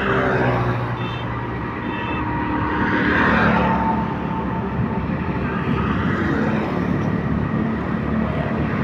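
Street traffic: motor vehicles passing one after another, engines and tyre noise rising and falling as they go by, with a louder pass about three seconds in.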